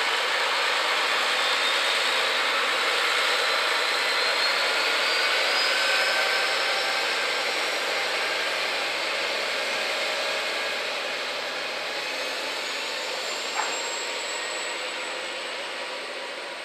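KiHa 47 diesel railcar pulling away under power. The engine runs hard with a whine that rises in pitch as the train gathers speed, then the sound fades as it draws away. A single sharp click near the end.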